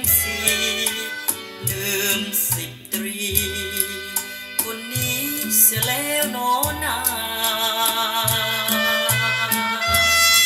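Music with bass notes and percussion played through a pair of Victor S-D11 vintage three-way floor speakers (8-inch woofer, 3.5-inch midrange, 1.5-inch tweeter), picked up in the room during a listening test.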